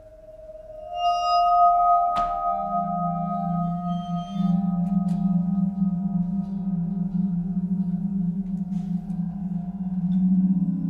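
Contemporary chamber music for guitar and percussion: long ringing bell-like tones swell in, a sharp attack strikes about two seconds in, and a low, pulsing held tone follows and carries on, with more low tones joining near the end.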